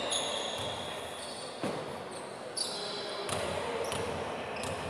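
Basketball bouncing on a hardwood court, a few separate bounces, with short high-pitched sneaker squeaks from players moving.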